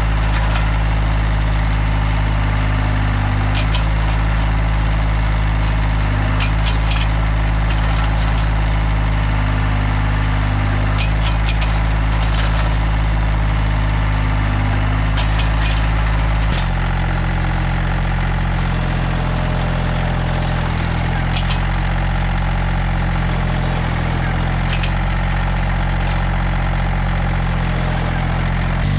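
Massey Ferguson GC1725 compact tractor's diesel engine running steadily under load, driving a three-point PTO post-hole auger as it bores into clay soil. About sixteen seconds in, the engine note shifts abruptly and then holds steady again, with a few faint sharp clicks throughout.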